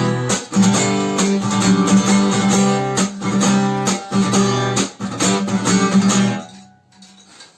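Acoustic guitar strummed in a driving, even rhythm, the strokes scratching across the strings like percussion; the playing stops a little over six seconds in and the chord rings away.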